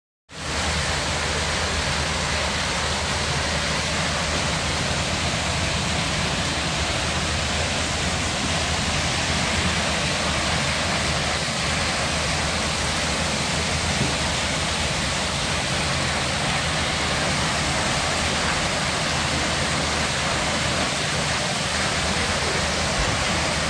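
Overflow water from a hot spring pouring steadily over a stone sill and splashing into a pool below: a constant, even rush of falling water.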